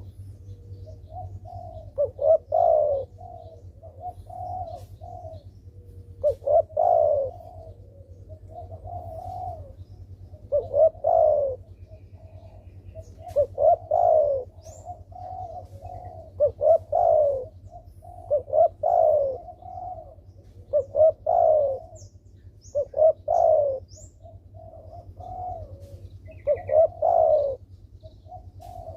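Spotted dove (derkuku) cooing over and over: a loud coo phrase every two to four seconds, with softer coos in between. This is a vigorously calling bird of the kind played as a lure to set other doves calling.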